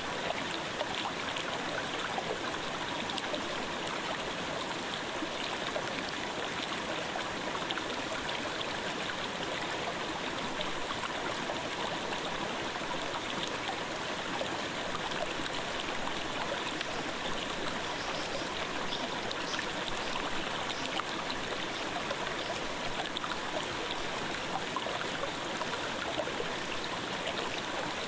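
Clear mountain stream babbling, a steady, even rush of flowing water.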